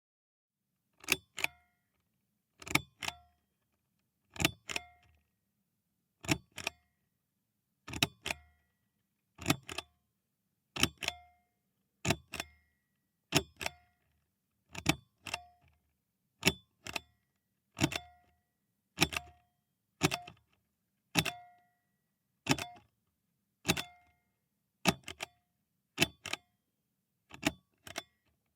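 Metal pull string being pulled and released about twenty times, roughly once every second and a half, each pull giving a quick double click with a short metallic ring.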